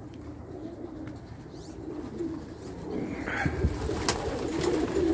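A loft full of racing pigeons cooing, the cooing growing louder toward the end. A few short clicks and taps come about three to four seconds in.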